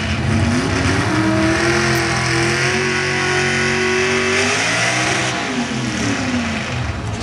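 Pulling truck's engine revving hard at the sled, its pitch climbing over the first few seconds, holding, then falling and rising again.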